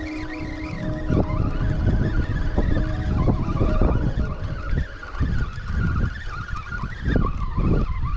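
Fishing reel being cranked to bring in a hooked striped bass, its gears giving a whine that rises and falls with the cranking speed. Wind rumbles on the microphone underneath.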